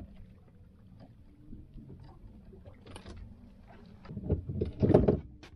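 Quiet, steady boat-and-water background with faint scattered clicks, then a cluster of loud knocks and thumps about four to five seconds in as a fish is hoisted out of the water onto the boat.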